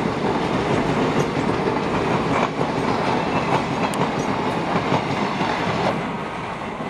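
Passenger train coaches passing close by at speed, the wheels clacking over the rail joints under a steady rush of noise. The sound eases off about six seconds in as the last coach goes past.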